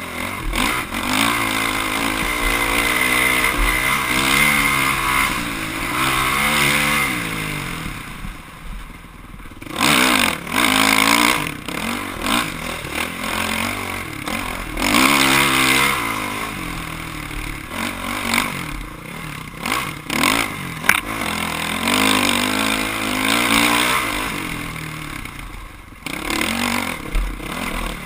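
Dirt bike engine revving up and down as the rider works the throttle over the course, the pitch rising and falling every few seconds. The engine drops off briefly about nine seconds in and again near the end, and a few sharp knocks sound in between.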